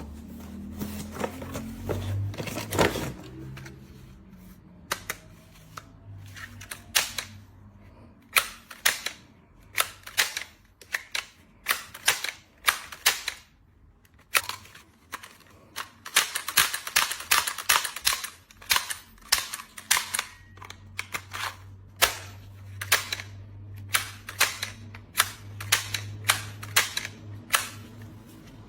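Toy pistol being worked by hand: a long run of sharp mechanical clicks, irregularly spaced, often one or two a second with quicker clusters in between.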